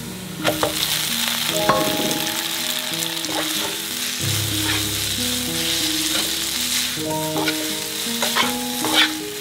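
Cooked spaghetti dropped into hot olive oil in a nonstick frying pan: a sudden sizzle as it lands, then steady frying while metal tongs toss it, with clicks of the tongs against the pan.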